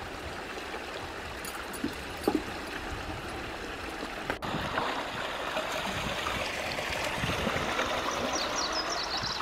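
Water from a small spring trickling and running steadily, a little louder in the second half.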